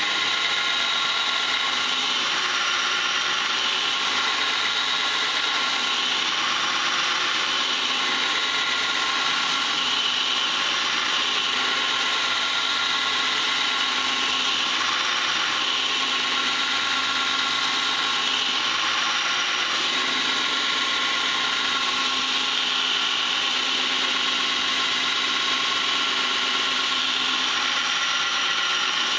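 2x72 belt grinder running with a slab of D2 tool steel held flat against the belt on the platen: a steady grinding hiss of steel on the abrasive belt, without a break. The belt is kept wet by a water-cooling feed.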